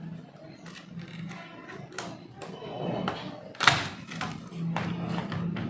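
Scattered plastic clicks and knocks as the small latches holding an HP 1000 laptop keyboard are prised open with a small flat screwdriver; the loudest is a sharp knock about three and a half seconds in.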